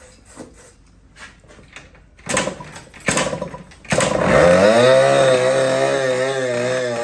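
Yamaha Vogel 50cc two-stroke scooter engine being started: a few light clicks, two short bursts of cranking, then it catches about four seconds in and runs at a fast idle whose pitch wavers up and down.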